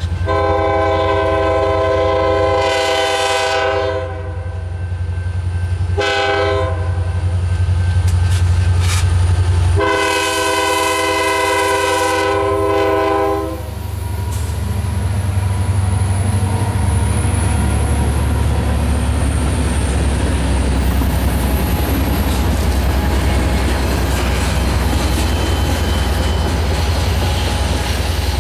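Air horn of a Norfolk Southern freight led by EMD SD40-2 6129 sounds a long, a short and a long blast for the grade crossing, over the steady low rumble of the diesel engines. From about halfway in, the locomotives pass and covered hopper cars roll by with steady wheel-on-rail noise and a brief faint wheel squeal.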